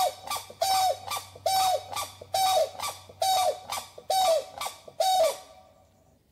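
An animal calling over and over, about seven calls a little under a second apart, each a short held note that drops at the end; the calls stop shortly before the end.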